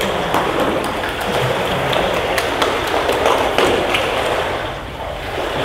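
Pool water splashing and lapping as swimmers move in the lanes, a steady wash with many small sharp splashes and taps scattered through it.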